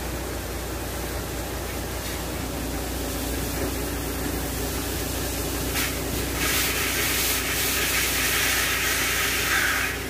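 Heavy truck running with a steady low engine hum. About six seconds in, a loud hiss of compressed air from the truck's air system starts, lasts about four seconds, and cuts off near the end.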